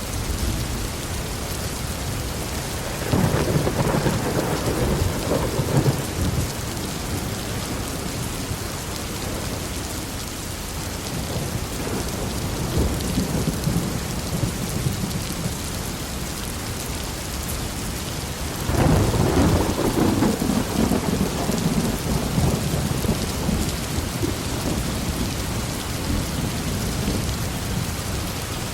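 Heavy rain falling steadily, with thunder rumbling twice: once starting about three seconds in for a few seconds, and again about two-thirds of the way through for several seconds. A fainter roll comes between them.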